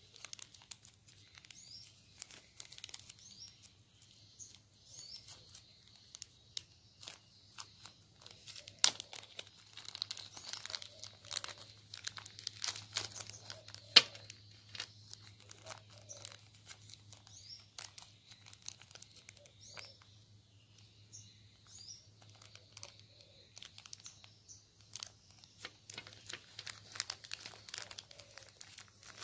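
Thin clear plastic zip-lock bags crinkling and rustling as they are handled, with irregular sharp clicks and taps, two of them louder. Faint bird chirps sound in the background.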